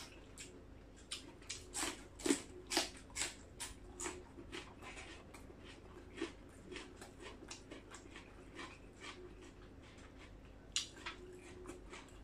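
Close-up chewing of crisp raw cucumber: irregular crunches and wet mouth smacks, thickest in the first few seconds and sparser after, with a last few near the end.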